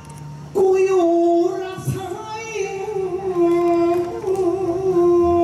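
A likay singer's voice, amplified through a microphone, holding one long drawn-out sung line that starts about half a second in, its pitch wavering slightly.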